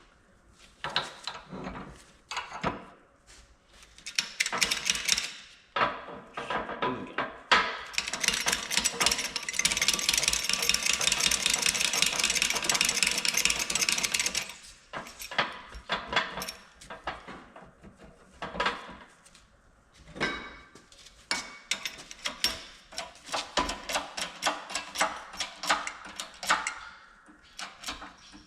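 Workshop tool and metal-part sounds from a CV joint being reassembled: scattered clicks and knocks. About eight seconds in comes a run of rapid mechanical rattling, the loudest part, which stops after about six seconds.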